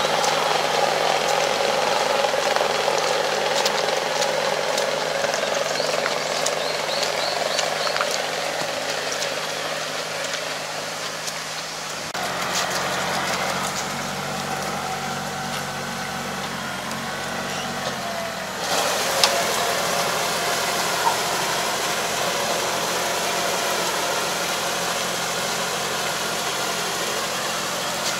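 Farm tractor's diesel engine running steadily, driving and then pulling a 3 m drive harrow through a flooded rice paddy for puddling. The engine sound changes abruptly twice, about twelve and eighteen seconds in.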